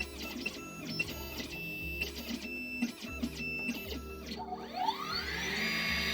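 Xhorse Dolphin XP-005L key cutting machine's stepper motors whining in a run of short moves, the pitch changing from move to move, as the carriage positions itself for the cutting calibration. About four and a half seconds in, the cutter spindle motor spins up with a rising whine that levels off.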